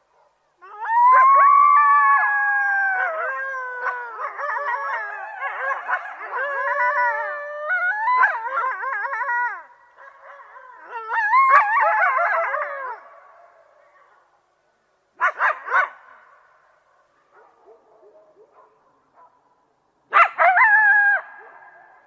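A pack of coyotes howling and yipping together, many high wavering calls overlapping for about twelve seconds before fading. After a pause come two short bursts of yips and howls, the second near the end.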